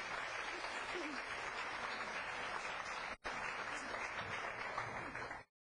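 Audience applauding: a dense, steady clatter of many hands clapping that drops out for an instant about three seconds in and cuts off suddenly near the end.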